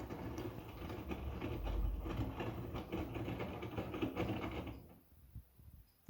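Bauknecht WM 08 ECO front-loading washing machine tumbling a load during its wash cycle: a low motor hum with laundry clattering and turning in the drum, which stops about five seconds in.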